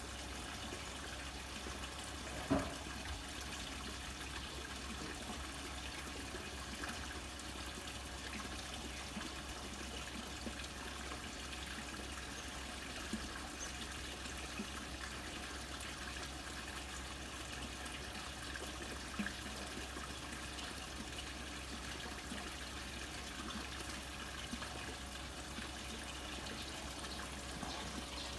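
Water running and trickling steadily into a koi pond, with one short sharp knock about two and a half seconds in.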